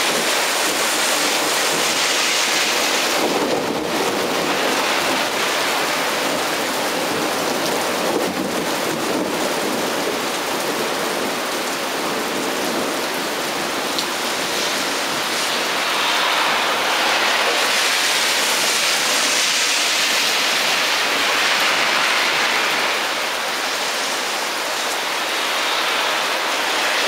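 Heavy thunderstorm rain pouring steadily: a dense, even hiss of rain on surfaces, growing a little stronger about two-thirds of the way through.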